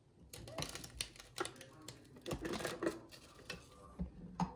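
Irregular clicking and clattering of kitchen items being handled while coffee is made: a string of short knocks and rattles, with a sharper knock near the end.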